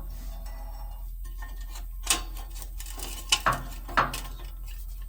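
Steel U-bolt being worked into place on a semi-trailer axle, clinking and knocking against the metal, with a few sharp clanks in the second half.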